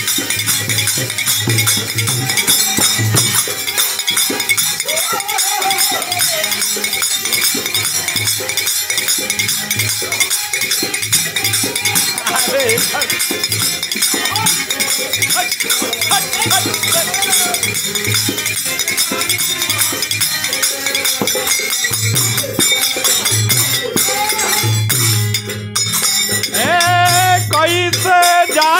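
Instrumental interlude of a folk bhajan: a dholak is played with repeated deep strokes under a constant metallic jangle of hand cymbals. A singing voice comes back in near the end.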